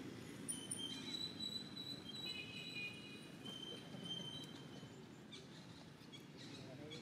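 Outdoor ambience: a steady low rumble, with several thin, high, steady tones held together over the first few seconds and a few faint ticks later.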